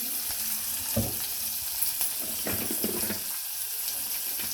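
Chopped onions and green chillies sizzling in oil in a pot, salted to soften them. They are stirred, with a few knocks of the spoon against the pot.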